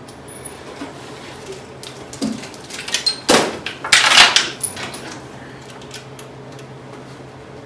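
Metal tools and parts clinking and clattering during engine-removal work, with a run of louder metallic clatters about three to four seconds in and scattered small clicks around them.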